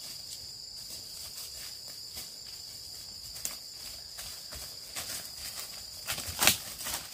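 Steady high-pitched insect drone in forest. About five seconds in, irregular footsteps crunching start, the loudest a little after six seconds in.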